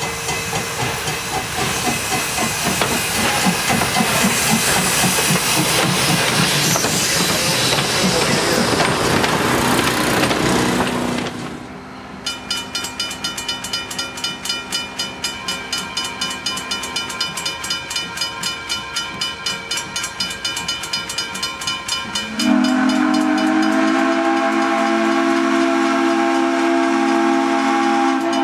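Steam locomotive No. 58, a Wilmington & Western 0-6-0: loud steam hiss and running noise for the first ten seconds or so. Then a bell rings steadily at about three strokes a second, and about twenty-two seconds in the steam whistle sounds a long, held blast of several notes together.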